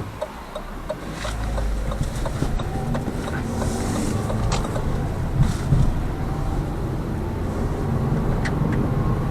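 Lada Vesta Cross heard from the cabin as it pulls away: a regular ticking fades out about a second in, then engine and road noise build to a steady drive on winter friction tyres.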